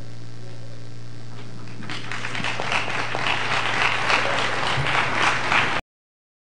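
Audience applauding, starting about two seconds in and building, then cut off abruptly near the end. A steady low electrical hum runs underneath until the cut.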